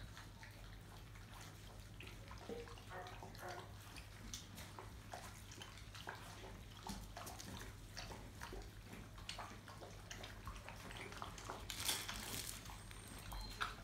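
Five-week-old St Bernard puppies eating dry kibble from shared bowls: a steady patter of small crunches and clicks, with a brief louder rustle near the end.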